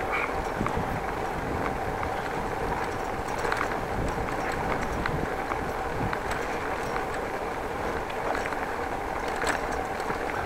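Bicycle rolling over brick pavers: a steady rumble from the tyres, with small rattling clicks from the bike and a faint steady whine underneath.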